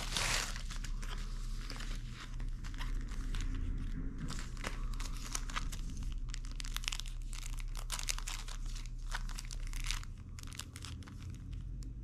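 Thin plastic packaging crinkling as it is handled: a mailer bag and small clear plastic bags. There is a dense rustle right at the start, then irregular crackles throughout.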